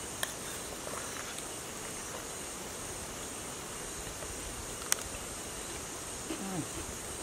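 Steady high-pitched chirring of insects, like crickets. Two sharp clicks cut through it, a faint one just after the start and a louder one about five seconds in.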